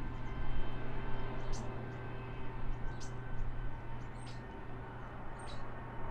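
Steady low drone of jet engines with fixed tones in it, under four short high chirps of small birds about a second and a half apart.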